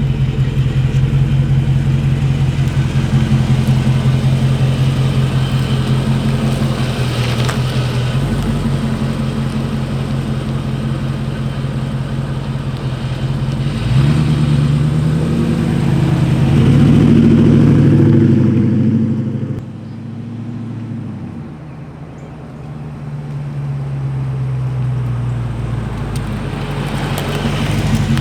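Dodge Charger Scat Pack's 392 Hemi V8 running with a deep, pulsing exhaust note. About halfway through the engine note rises and swells, then drops off suddenly and builds back up toward the end.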